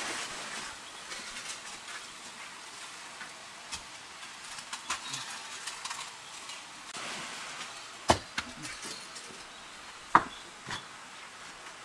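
A smoking campfire being tended by hand: scattered crackles and the rustle of dry leaves, with two sharp knocks about eight and ten seconds in.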